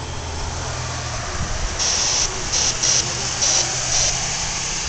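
Pickup truck driving past on the road, its engine hum and tyre noise building, with short repeated bursts of hiss.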